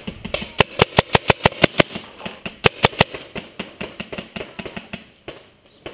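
Paintball marker firing a rapid string of shots, about six a second for roughly two and a half seconds, then slowing to a few scattered shots.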